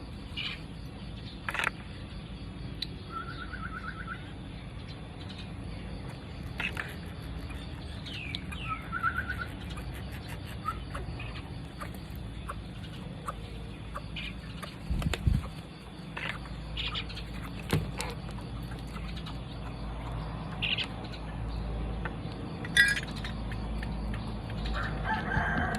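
Baby parrot chicks calling while being hand-fed: short chirps and a few brief runs of rapid repeated notes, with scattered clicks. These are the begging calls of chicks at feeding.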